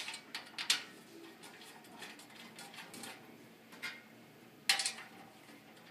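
Sharp metallic clicks and clinks from the parts of a metal poster holder being handled and fitted together by hand: a few in the first second, one near four seconds, and a quick run of three about five seconds in, the loudest.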